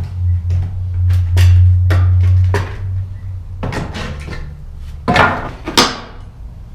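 A crowbar prying nailed pallet boards loose: a run of wooden knocks and clatters, the sharpest just after five seconds in. A low steady hum sits under the first half.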